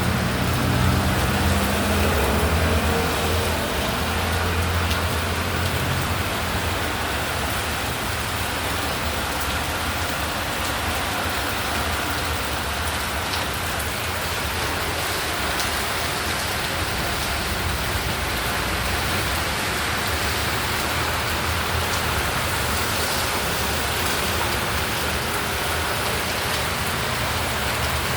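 Rain falling steadily. A vehicle engine's low hum is heard at first and fades out over the first several seconds.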